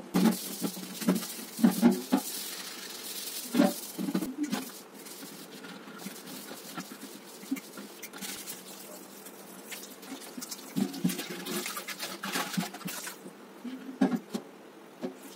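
Tap water splashing into and around a copper water pot in a steel kitchen sink, with several clunks of the metal pot knocking against the sink as it is handled.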